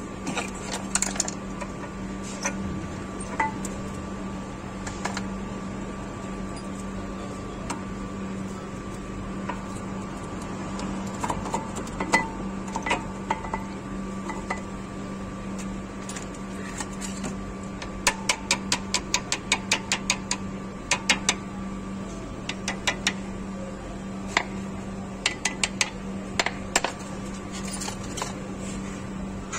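Metal clicks and clinks of front brake pads and their spring clips being handled and seated in a Mercedes-Benz brake caliper, including a quick run of about five clicks a second in the second half, over a steady low hum.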